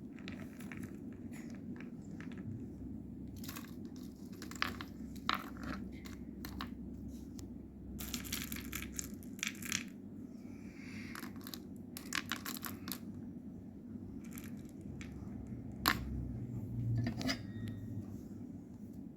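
Chocolate being unwrapped and cut: scattered sharp clicks and crackles, with denser crackling stretches about eight and twelve seconds in, over a steady low hum.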